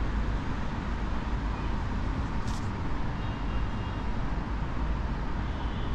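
Steady city background of distant traffic: a constant low rumble with hiss above it. A brief high click about two and a half seconds in.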